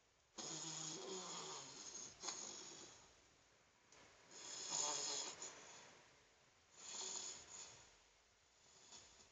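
Snoring in separate snores: a long one about half a second in, another near the middle, a shorter one later and a faint one near the end, with quiet breaths between.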